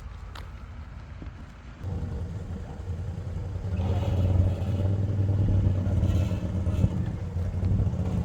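A motor vehicle's engine running with a steady low hum. It steps up suddenly about two seconds in and grows louder again around four seconds.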